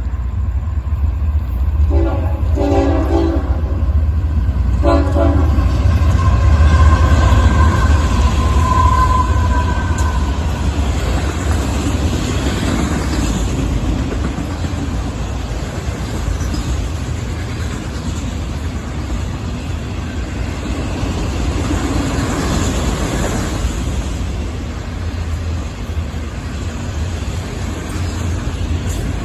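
Florida East Coast Railway freight train passing close by. Its horn sounds short blasts a couple of seconds in, then the cars roll past with a steady heavy rumble and rattle of wheels on rail.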